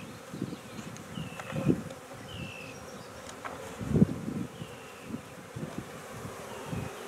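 Swarm of honey bees buzzing around a nuc box they have just been shaken into. The buzz swells louder several times, most at about one and a half seconds and four seconds in, as bees fly past close by.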